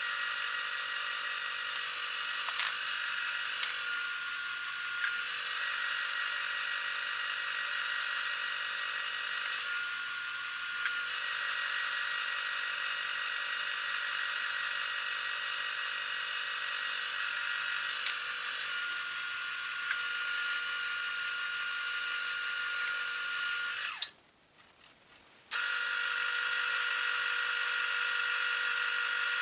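Wood lathe running steadily, its motor giving an even whine with several fixed tones. The sound cuts out abruptly about 24 seconds in and comes back a second and a half later.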